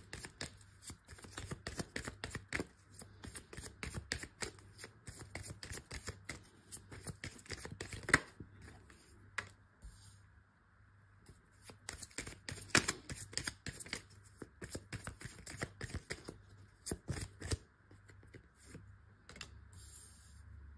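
A tarot deck being shuffled by hand and cards laid onto a wooden table: a run of quick, light card clicks and snaps that pauses briefly just after halfway, with one sharper snap about eight seconds in.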